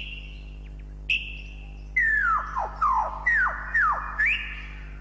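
Albert's lyrebird calling: a clear whistled note about a second in, then a quick run of about five loud whistles, each sliding down in pitch, ending on a rising note.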